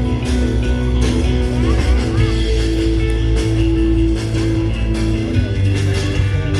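Loud guitar-led rock music with a heavy bass line, held notes and a steady beat.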